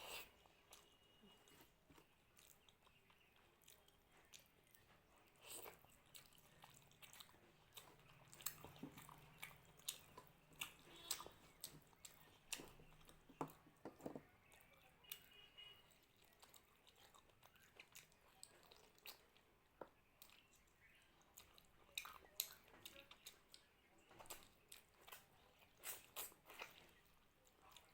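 Faint close-up chewing and mouth smacks while eating mutton curry and rice: a steady string of short, irregular wet clicks.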